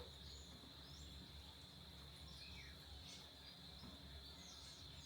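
Near silence: faint background ambience with a steady high-pitched whine and a few faint, brief chirps.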